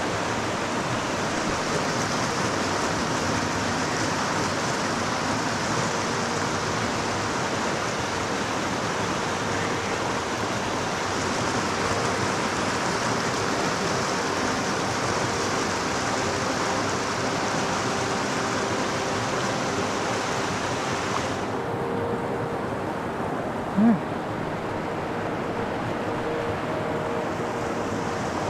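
Steady rush of flowing river water, becoming duller about three quarters of the way through, with one brief loud low sound that rises in pitch shortly after.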